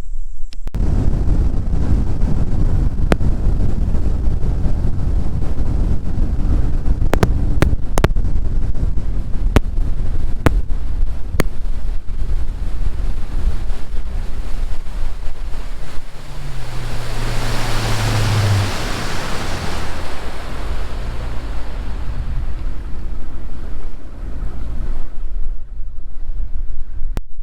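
Heavy wind rumbling on the microphone aboard a fishing boat. A few sharp clicks sound in the first half, and a low hum slides down in pitch about two-thirds of the way through.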